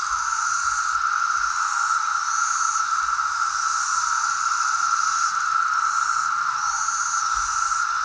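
A chorus of cicadas: a steady, loud droning buzz, with higher buzzing phrases about a second long swelling and fading over it again and again.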